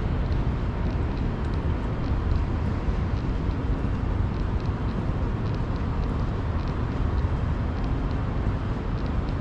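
Steady, low outdoor rumble with no clear single source, with a few faint ticks above it.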